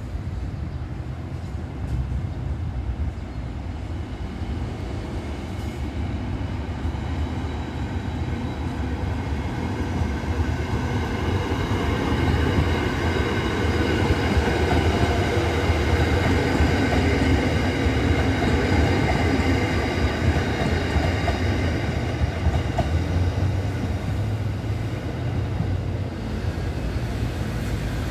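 SRT Red Line electric commuter train passing close by: a whine of several steady tones over a low rumble of wheels on rail. It grows loudest about halfway through as the train goes past, then eases off as it draws away.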